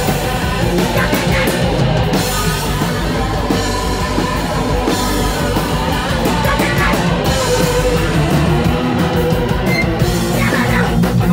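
Punk rock band playing live at full volume: electric guitar, bass guitar and a drum kit pounding through the song without a break.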